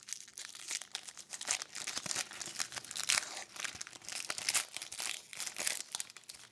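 Foil hockey-card pack wrappers being torn open and crinkled by hand, a dense irregular crackling that stops near the end.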